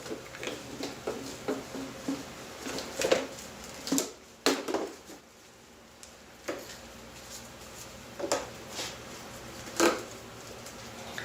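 Irregular plastic knocks and clicks of 3/4-inch PVC pipe and fittings being handled and pushed together, with louder knocks about three, four and a half, and ten seconds in.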